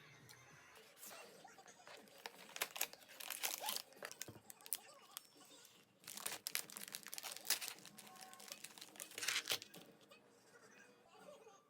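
Crinkling and rustling in irregular bursts, with sharper crackles, as something is handled.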